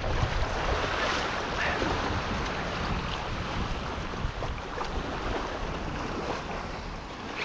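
Small waves washing up onto a sandy beach, with wind buffeting the microphone.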